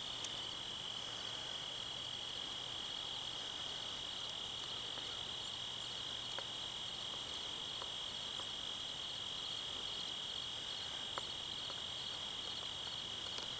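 Crickets trilling in a steady, continuous high-pitched chorus, with a few faint ticks.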